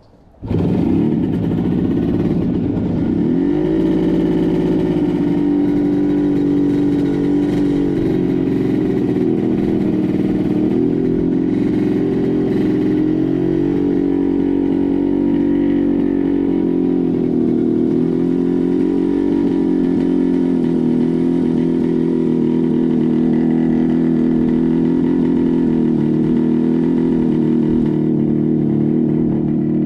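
1967 Kawasaki A1SS Samurai's two-stroke parallel-twin engine running under way. It cuts in suddenly about half a second in, its pitch rises over the next few seconds, then it holds fairly steady with small rises and falls in revs.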